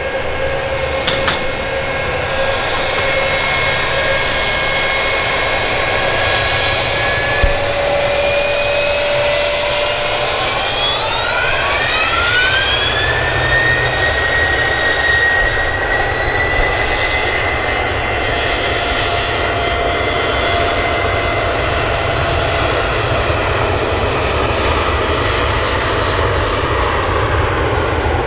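Boeing 717's two rear-mounted Rolls-Royce BR715 turbofans whine steadily at low power. About ten seconds in they spool up, the whine rising sharply over a few seconds, then hold steady at high thrust for the takeoff run.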